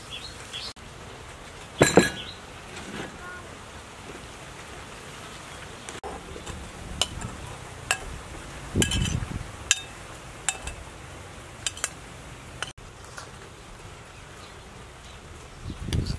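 Metal spoon clinking and scraping against a ceramic plate and a stone mortar as raw fish pieces and then ground pepper are spooned into the mortar. There are scattered sharp clinks, the loudest pair about two seconds in, and a few soft knocks.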